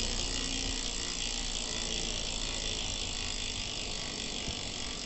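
Rear freehub ratchet of a carbon road bike clicking rapidly and steadily as the rear wheel spins freely, easing slightly toward the end.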